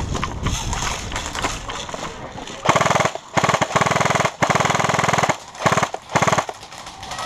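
Airsoft gun firing on full auto in about five short bursts, starting about two and a half seconds in: a fast, even rattle of shots in each burst.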